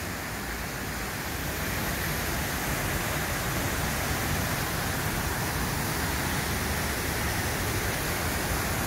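Waterfall pouring into a rocky pool: a steady rush of water that grows a little louder about two seconds in.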